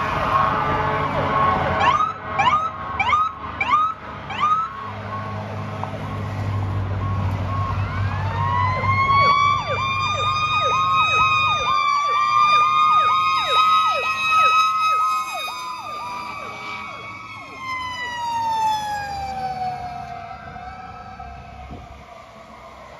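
Fire engine electronic sirens. A run of quick rising whoops comes a couple of seconds in. Then a rapid yelp wail sets in, slowly drops in pitch and fades away, with a low engine drone under the first part of the yelp.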